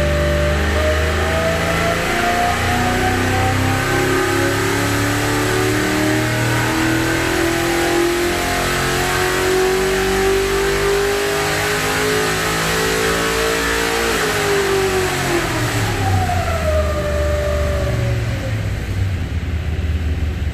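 Rebuilt V8 race engine from a 1969 Corvette running on an engine dynamometer during a dyno pull: the revs climb slowly and steadily for about thirteen seconds, then drop back toward idle over the next few seconds.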